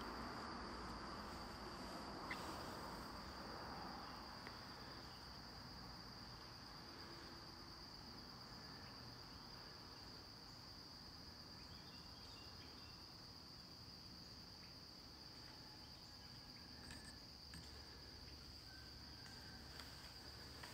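Faint, steady, high-pitched drone of crickets singing without a break, with an occasional tiny tick.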